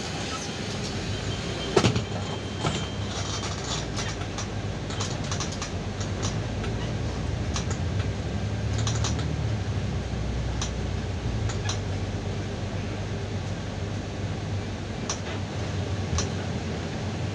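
Inside a Golden Dragon XML6125 city bus on the move: a steady low drone from the engine and drivetrain that swells about halfway through, with scattered clicks and rattles from the cabin and one sharp knock about two seconds in.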